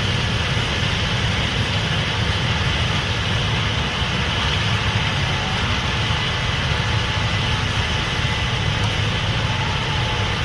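Case IH 8250 Axial-Flow combine running steadily while harvesting corn: a deep, even engine drone with a constant high hiss of machinery over it.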